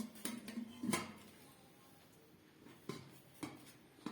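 Light metal clinks and knocks as parts of a stainless steel pressure cooker are fitted together: about six separate strikes, the loudest about a second in, with a brief ringing scrape during the first second.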